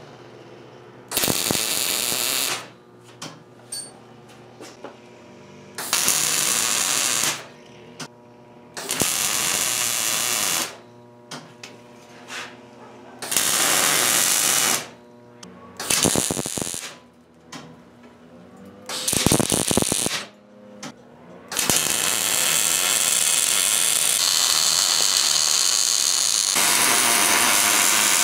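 MIG welder arc running in about six short welds of one to two seconds each, with pauses between, then in one continuous bead for roughly the last quarter.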